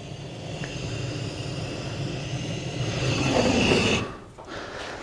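Tow soaked in lighter fluid and kindling catching fire in a fireplace: a rushing rumble of flame that swells and is loudest just before it cuts off sharply about four seconds in.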